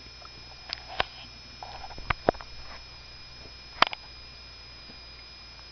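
Glass vase tipped on its side, knocked by a cat pushing its head and paw into it: a handful of sharp taps and clinks, the loudest nearly four seconds in, with soft sniffing and rustling between them.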